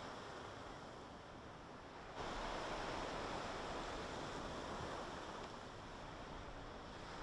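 Steady rush of a fast, flood-swollen stream of muddy water, jumping louder about two seconds in.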